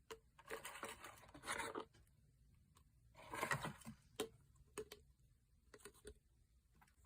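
Slime being pressed and stretched by hand, in two bursts of crackling and popping, followed by a few scattered small pops.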